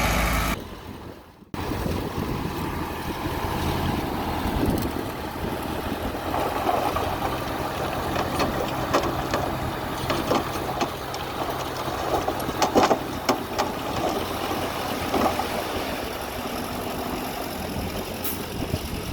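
Bulldozer engine running steadily, with scattered metallic clanks and knocks, most of them near the middle. After a brief drop to quiet about a second in, the sound comes back.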